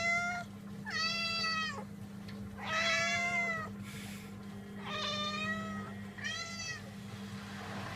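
Domestic cats meowing: a string of about five separate meows, each under a second long, over a steady low hum.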